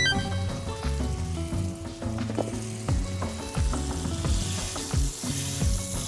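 Steak sizzling as it is laid into a hot small iron pan greased with beef tallow, the hiss growing stronger partway through. Background music with a steady beat plays underneath.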